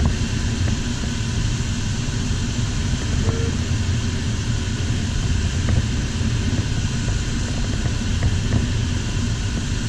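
Steady rush of wind noise from air streaming over an LS4 sailplane in unpowered gliding flight, with a low rumble.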